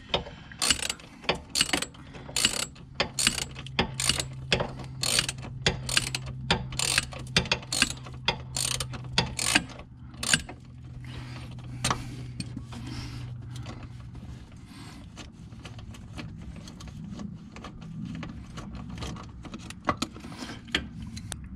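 Hand ratchet clicking stroke after stroke as it backs out a rear shock mounting bolt that has already broken free. The clicks are loud and come about twice a second for roughly the first ten seconds, then turn fainter and quicker.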